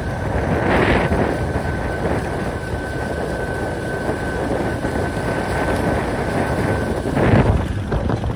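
A vehicle driving across grass with wind buffeting the microphone, under a steady high whine that stops about seven seconds in. The wind noise surges twice, about a second in and near the end.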